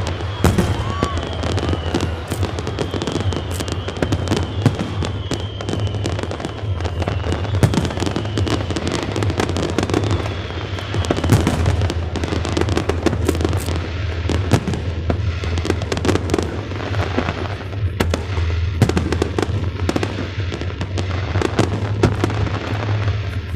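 Fireworks display going off continuously: a dense, irregular run of bangs and crackles with no pause, over a steady rumble.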